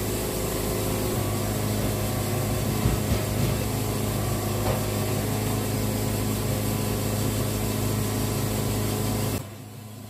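Wood-Mizer LT70 Wide band sawmill running steadily as its blade cuts a slab off a red cedar log, a steady engine hum under the sawing. The sound drops away abruptly near the end.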